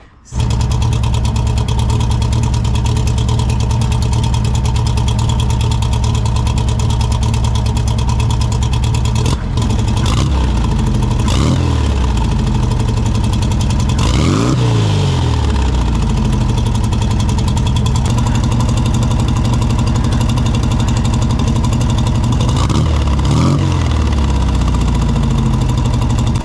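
Carbureted car engine running steadily, blipped up in revs a few times in the middle and near the end as the throttle is opened to watch the accelerator pump squirt fuel.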